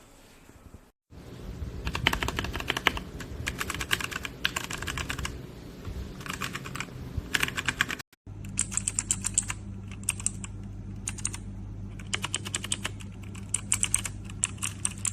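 Typing on a Machenike K500 B61 60% mechanical keyboard: rapid runs of key clicks in bursts with short pauses. The sound cuts out briefly about a second in and again about eight seconds in, and a steady low hum runs under the second half.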